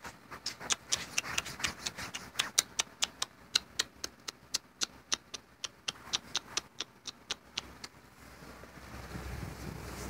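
A rapid run of sharp clicks or taps, about five a second, stopping about eight seconds in, then rustling handling noise as the camera is moved.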